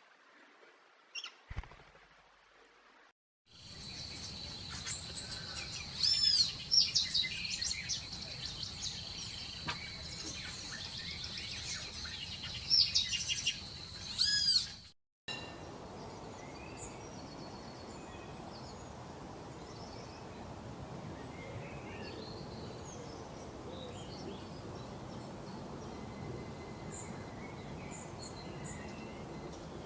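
Wild birds singing. After a few seconds of near silence with a single click, loud rising-and-falling whistled calls ring over a steady high trill. About halfway through they cut off suddenly, giving way to a softer outdoor hiss with scattered faint chirps.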